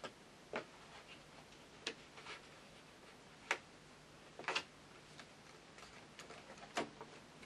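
Light clicks and taps at irregular intervals, a few seconds apart, from small doll accessories being handled and put away.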